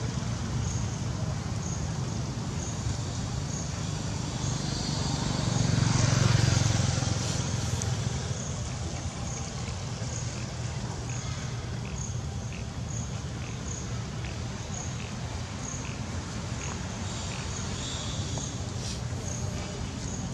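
Outdoor ambience dominated by a steady low rumble of road traffic, with one vehicle swelling past about six seconds in. A faint high pip repeats at an even pace over it.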